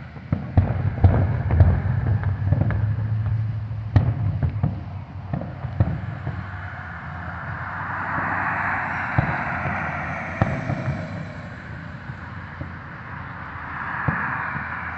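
Aerial fireworks bursting: a run of sharp bangs and pops through the first half, then longer swells of rushing noise.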